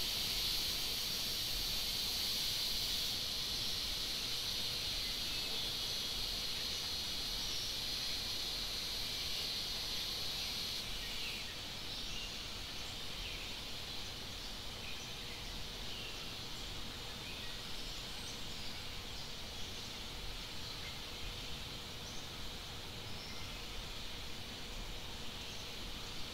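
Outdoor woodland ambience: a steady high insect drone that drops away about ten seconds in, followed by scattered short high chirps.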